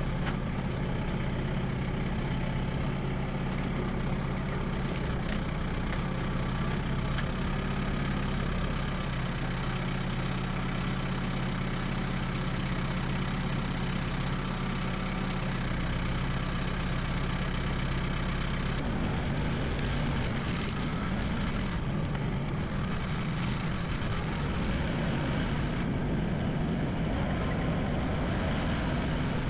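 Kubota tractor's diesel engine running steadily, its note turning rougher and slightly louder about two-thirds of the way through.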